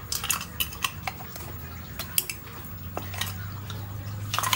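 Irregular light metallic clinks and taps of small metal parts and hand tools being handled, over a faint low steady hum.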